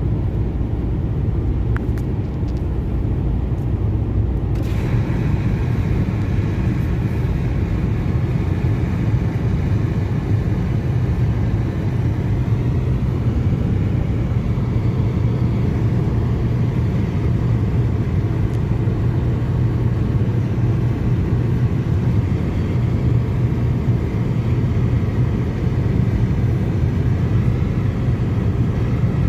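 Steady low rumble of a car driving, engine and road noise holding even throughout with no rise and fall of a pass-by. About five seconds in, a higher hiss joins it.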